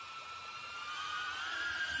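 A small 4S quadcopter's brushless motors (EMAX ECO II 2004, 3000KV) spinning 3-inch propellers in a hover, a steady high whine that rises slightly in pitch about halfway through.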